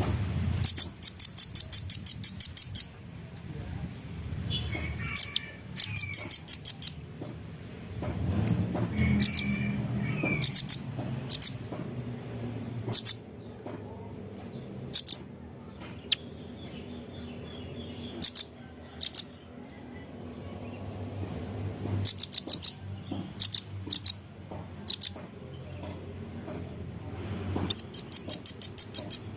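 Velvet-fronted nuthatch calling: quick runs of sharp, high 'chit' notes near the start, around six seconds in and near the end, with single sharp notes scattered in between.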